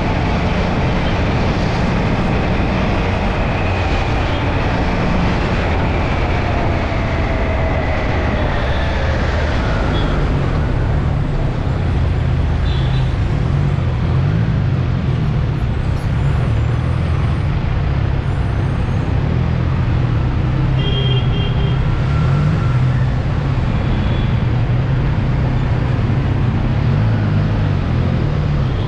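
Motorcycle running steadily on the road, engine under heavy wind and road noise, with traffic around it. Over the first ten seconds another vehicle's sound falls slowly in pitch as it goes by.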